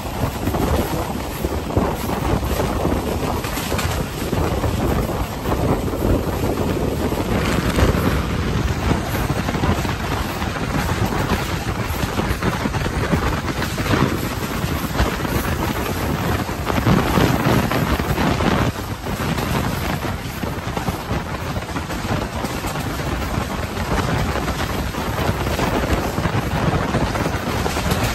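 Passenger train running at speed: a steady rumble of wheels and track noise, with wind buffeting the microphone.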